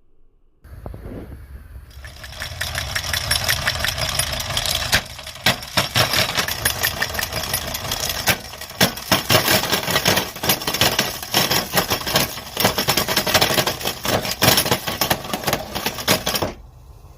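Electric meat grinder starting up, then loudly crunching plastic Ludo dice, a dense run of cracks and snaps over the motor's hum. The crunching stops near the end.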